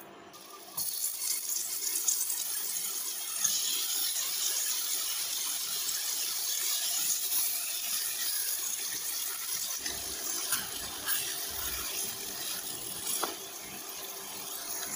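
Strips of ham sizzling in hot oil in a nonstick wok: the sizzle starts about a second in as the strips go into the pan and gets louder a few seconds later, with a few light knocks of the strips being placed.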